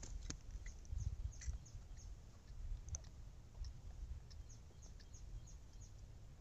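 Wind rumbling on the microphone, swelling about a second in and again around three seconds, with scattered short high chirps of small birds and a few faint clicks.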